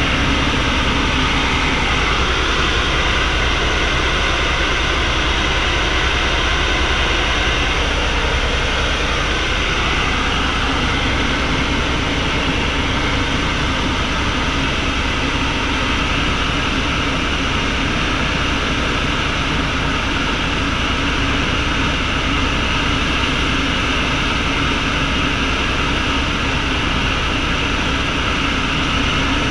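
Helicopter engine and main rotor running steadily in flight, heard from inside the cabin: a loud, even drone with steady tones that does not change.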